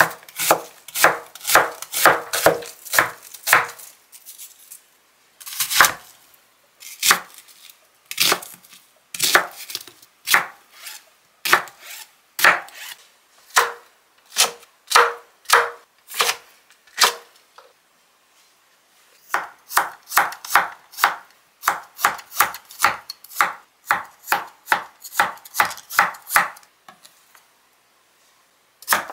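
A chef's knife slices onion, then green chili peppers, then potato on a cutting board. The blade taps the board in a steady run of about two strokes a second, broken by a few short pauses.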